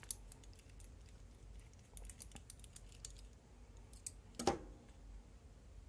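Faint small clicks and ticks of a precision screwdriver and tiny screws being worked on the handle of a Kershaw 1620ST pocket knife, with a couple of sharper clacks about four seconds in.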